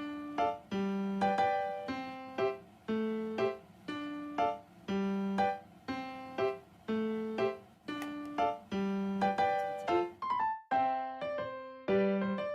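Background music: a light, bouncy piano melody with notes struck in a steady repeating pattern.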